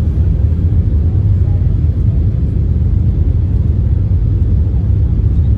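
Steady low rumble of an airliner cabin: engine and airflow noise heard from a passenger seat.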